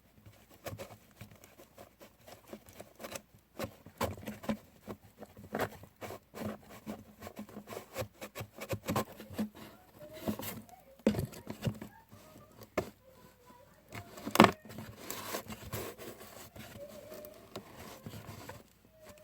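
Irregular light clicks, taps and rustles of a homemade vending machine being handled, with a couple of sharper knocks about 11 and 14 seconds in.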